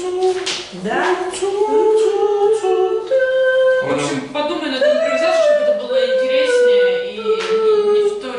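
A man singing solo into a handheld microphone in a pop style: held notes with slides and wavers in pitch, with no clear accompaniment.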